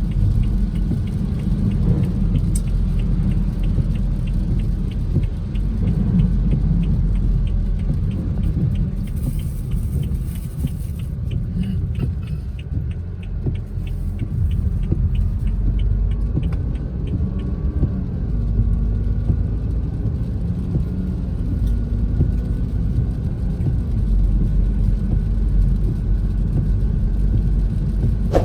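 Steady low rumble of a car on the move, heard from inside, with an even light ticking through the first half that stops partway through.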